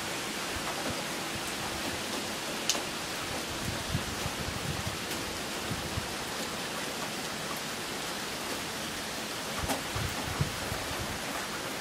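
Steady rain falling, an even hiss throughout, with a few faint taps.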